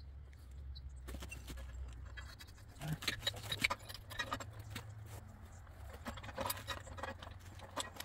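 Irregular light metallic clicks and clinks, starting about three seconds in, as a steel fitting is turned by hand onto the freshly threaded end of a black steel gas pipe held in a pipe vise.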